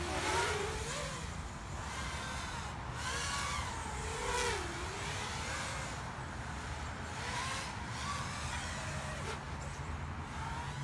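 A small QAV210 FPV racing quadcopter, with 2204 2300Kv brushless motors and 5045 props, flying overhead. Its motors give a fairly faint whine whose pitch rises and falls as the throttle changes, over a low steady rumble.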